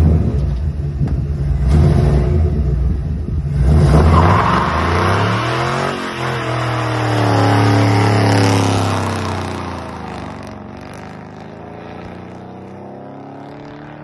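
1957 Chevy truck's 6.0-litre LS V8 revving hard through its dual exhaust while the rear tyres spin in a burnout. The engine climbs in pitch with a loud hiss of tyre spin, then drops and fades as the truck pulls away.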